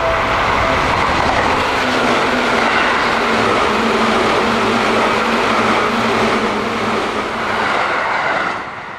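Electric train passing close by: a loud, steady rush of wheels on rails with a faint motor whine, dropping off sharply about half a second before the end.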